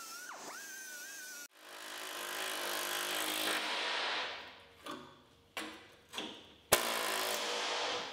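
Angle grinder whining on the steel of a 1959 VW Beetle floor pan lip, its pitch wavering and dipping briefly under load. After an abrupt change, a power tool works the pan metal in a long run and then several short bursts, with a sharp click about seven seconds in and a final steady run.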